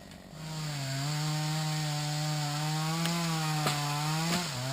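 Chainsaw throttled up about half a second in and held at a steady high speed while cutting through wood. The engine note drops near the end, with a few sharp clicks.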